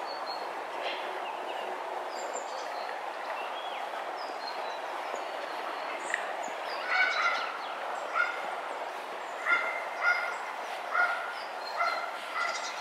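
An animal calling over and over, roughly once a second, starting about halfway through, over a steady background noise.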